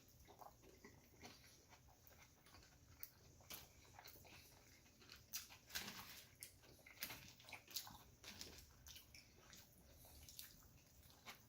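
Faint wet chewing and mouth clicks of a person eating a burger: a scatter of short, irregular smacks and crackles.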